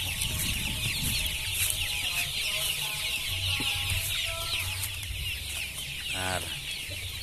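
A flock of young KUB kampung chickens calling in a steady chorus of many high cheeps and clucks, with one short, louder rattling call about six seconds in.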